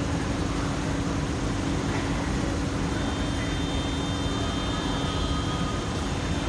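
Steady hum and rushing air noise of an underground metro platform, from the idling equipment of a parked S-Train standing with its doors open and the station's ventilation. A faint high whine joins about halfway through, and the low hum cuts off near the end.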